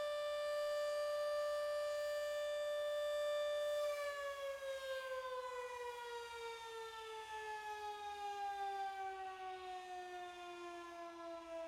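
Federal Signal Model 3 electromechanical siren holding a steady tone during the 'fire call' test signal. About four seconds in, its pitch starts falling slowly and keeps falling as the rotor winds down.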